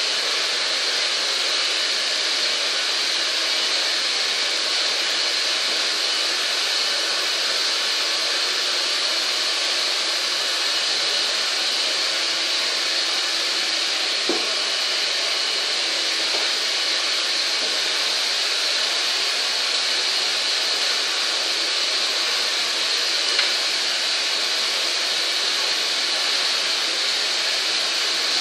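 Hair dryer running steadily at one speed, a continuous airy whoosh, with a light tap about halfway through.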